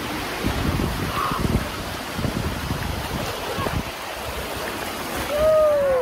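Sea surf washing on a beach, with wind buffeting the microphone in gusts. About five seconds in, a short cry falls in pitch over it, the loudest moment.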